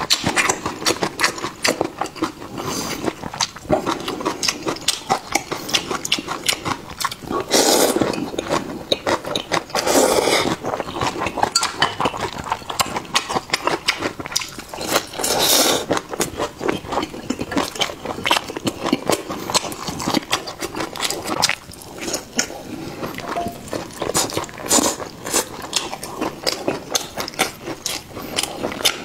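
Close-miked eating of river snail rice noodles and fried stinky tofu: steady wet chewing and mouth clicks, with three louder stretches about 8, 10 and 15 seconds in.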